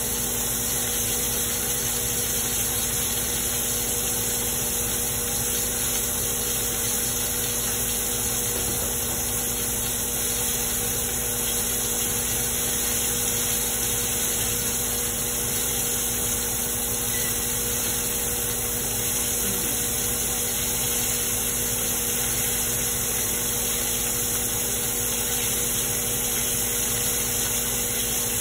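Steak frying in butter in a foil-covered pan on a gas burner, sizzling with a steady hiss, under a steady low mechanical hum.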